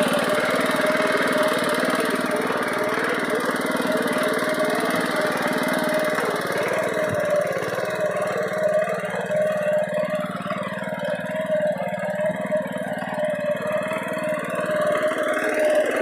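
Honda GX200 single-cylinder four-stroke engine on a power weeder running at a steady speed while its tines till the soil between crop rows, a little fainter in the middle as the machine moves away.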